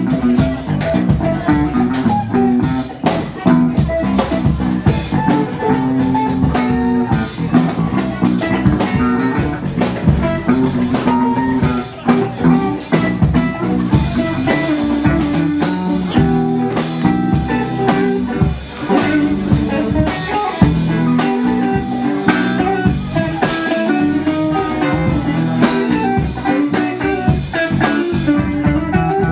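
Live band playing, electric guitar over a drum kit, loud and steady.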